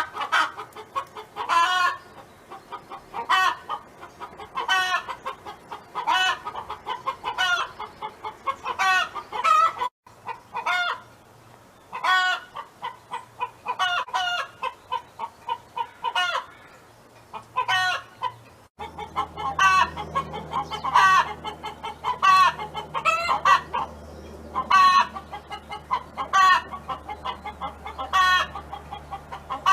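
Domestic hen clucking in a long, steady run of short calls, one or two a second, some ending in a rising note. About two-thirds of the way through, a steady low hum comes in behind it.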